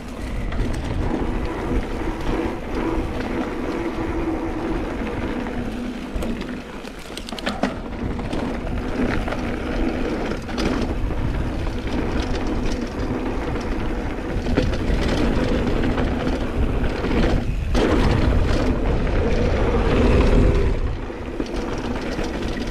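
Mountain bike riding fast along a dirt singletrack: wind buffeting the camera microphone, knobby tyres rolling over dirt, and the bike rattling and knocking over bumps. A steady hum runs under it, and the rumble swells near the end.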